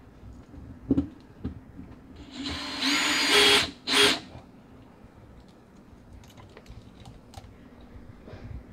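Cordless drill/driver running a screw: one whir of about a second and a half, then a short second burst about half a second later. A few light knocks and clicks of handling come before and after.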